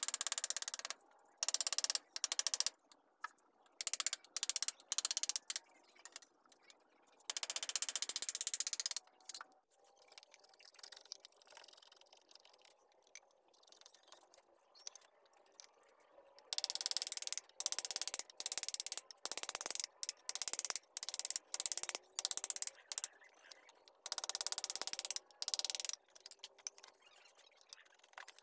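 A steel blade hand-carving a wooden plank: irregular scraping strokes as shavings are cut, some short and some about a second long, with pauses between and a quieter run of lighter strokes in the middle.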